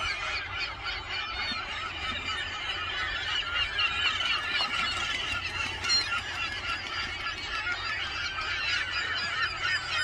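A gull colony calling: a dense, continuous chorus of many overlapping calls from a crowd of birds.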